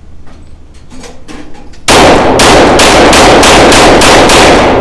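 Taurus TX22 Competition .22 LR pistol fired in a fast string, about ten shots at roughly four a second, starting about two seconds in, after a few quiet handling clicks. The pistol cycles without a stoppage.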